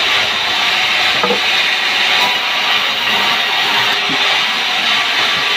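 Large sawmill band saw cutting lengthwise through a log of pucung hardwood: a loud, steady hiss of the blade in the wood over the running machine.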